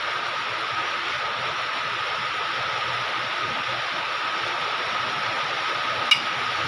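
Steady hiss with a faint high whine underneath, and a single sharp metallic click of a wrench near the end.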